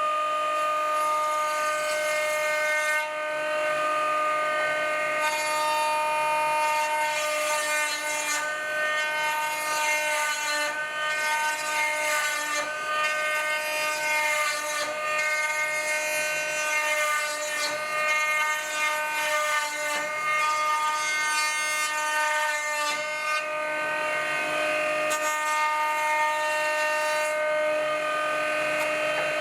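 Background music: sustained chords that change every second or two.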